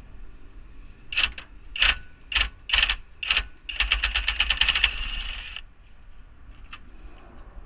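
Ratchet wrench clicking on 10 mm bolts: several short bursts of clicks, then a fast run of clicks for about a second that trails off.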